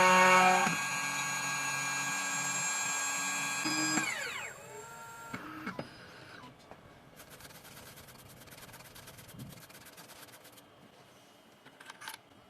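2M2 Tank 2 Pro CNC key cutting machine's cutter spindle running with a steady whine as it finishes cutting a V-shaped groove into a key blank. It gets quieter about a second in, then winds down with a falling pitch about four seconds in. After that come a few light clicks and fast faint ticking from the machine.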